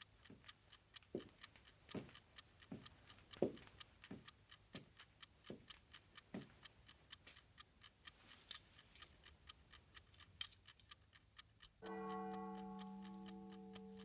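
Mechanical wind-up alarm clock ticking, fast and even, with a slower row of soft low knocks about every 0.7 s over the first six seconds. About twelve seconds in, a sustained low musical chord comes in suddenly and holds.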